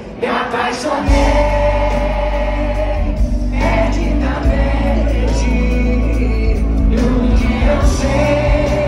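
Live sertanejo concert music over a PA, heard from inside the crowd: a sung melody with many voices singing along, and heavy bass and drums coming in about a second in.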